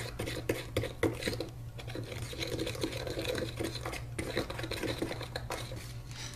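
Plastic spoon stirring a small amount of liquid candy-kit mix in a plastic measuring cup: quick, repeated scraping strokes against the cup, over a steady low hum.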